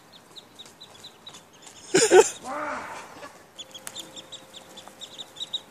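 Ducklings peeping rapidly and without pause, with a loud, harsh call from the mother duck about two seconds in, followed by lower calls.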